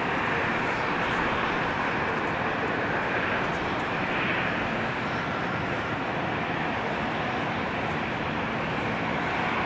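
Airbus A320neo airliner's jet engines running, a steady even rush of noise that holds its level throughout.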